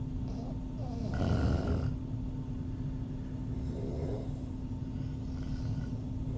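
A woman snoring through an open mouth: one loud snore about a second in, then a softer snoring breath around four seconds, all over a steady low hum.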